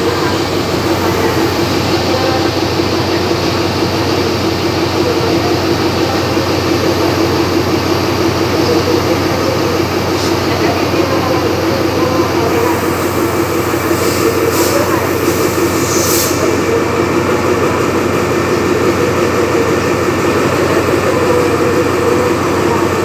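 Diesel-electric locomotive idling at a standstill, a loud steady engine drone with a held low hum, with a few brief hisses about two-thirds of the way through.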